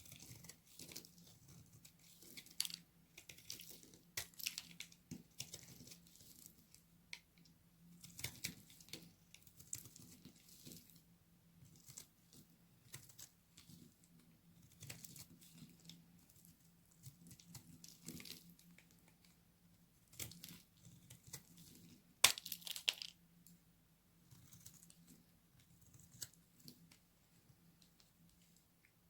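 Very dry soap being cut: irregular crisp crackling and crunching strokes, the loudest about two-thirds of the way through, over a faint low hum.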